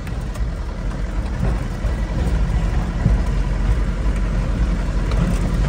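Truck engine running as the vehicle drives over a rough track, heard from inside the cab as a steady low rumble that grows slightly louder.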